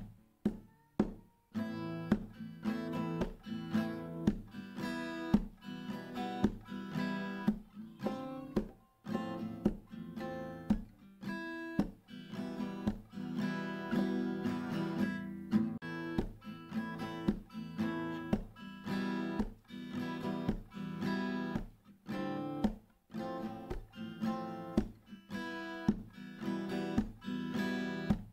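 Background music: a guitar playing plucked and strummed chords, each note struck sharply and fading.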